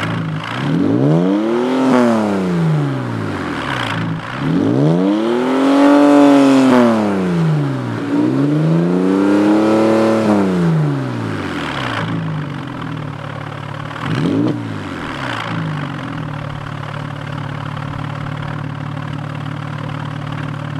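2008 Porsche 911 Carrera S's 3.8-litre flat-six, running with its mufflers removed and dual glasspack resonators in their place, revved with the car standing still. It gives a short rev, then two longer revs that climb and fall back, and a quick blip. It settles to a steady idle for the last few seconds.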